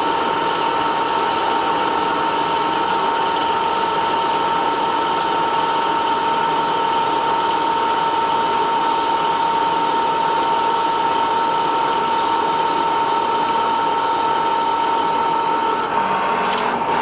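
CNC lathe turning a metal workpiece under flood coolant: a steady machine whine over the hiss of cutting and coolant spray. About a second before the end the sound dips briefly.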